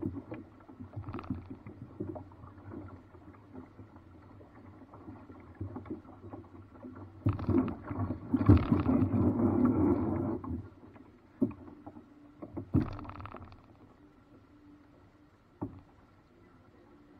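Paddling a small river boat: irregular paddle splashes and water noise with scattered knocks of paddle against hull. A louder stretch of splashing comes about halfway through, followed by a few sharp separate knocks.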